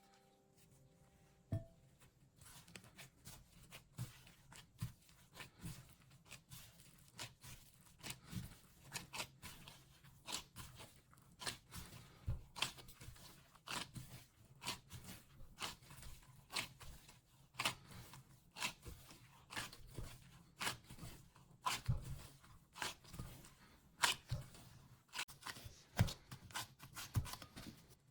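Bread dough being handled on a work surface: irregular light taps, cuts and scrapes, several a second.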